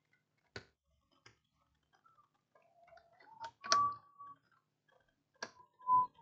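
Scattered sharp clicks and taps from the battery charger's plastic case and circuit board being handled and fitted together. Short squeaks of parts rubbing come near the middle and the end.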